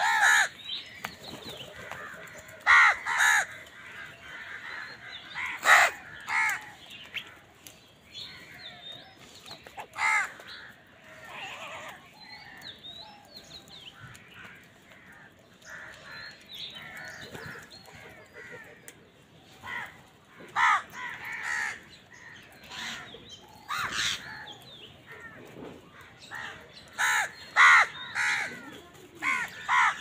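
House crows cawing: harsh, loud calls that come singly and in quick runs of two or three, thickest near the start and again near the end. Between them runs a steady, fainter twittering of smaller birds.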